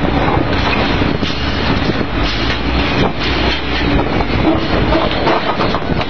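Drilling rig floor machinery running loudly, a dense rumbling din broken by irregular metal clanks of drill pipe and handling tools.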